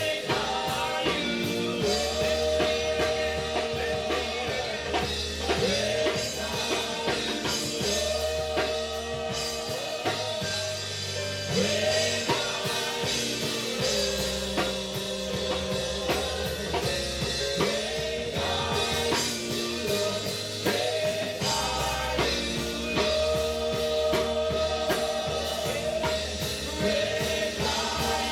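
Live church praise band playing a slow worship groove: drum kit keeping a steady beat under held bass notes and chords.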